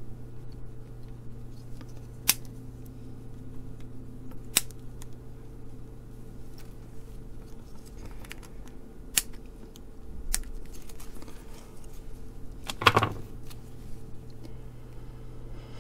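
Small hand tools clicking against a kit circuit board and its component leads: four single sharp clicks a couple of seconds apart, then a quicker, louder cluster of clicks near the end, over a steady low hum.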